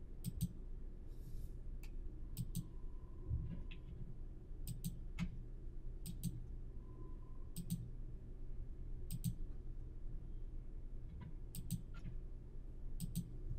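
Computer mouse clicking: about nine clicks spaced a second or two apart, each a quick double tick as the button goes down and comes back up, over a faint steady low hum.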